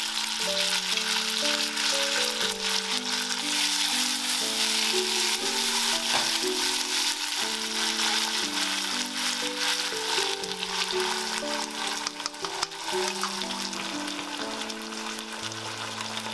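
Sliced meat and ratatouille vegetables sizzling in a nonstick frying pan as they are stirred, with many small clicks of the spatula and chopsticks against the pan. Soft background music with slow held notes plays underneath.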